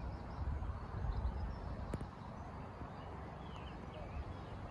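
Quiet riverbank ambience: an uneven low rumble of wind on the microphone, with a single click about two seconds in and a few faint bird chirps near the end.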